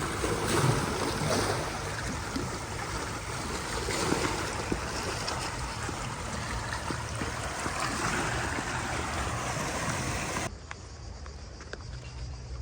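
Steady rush of sea water and wind at the shoreline, which drops suddenly to a quieter rush about ten and a half seconds in.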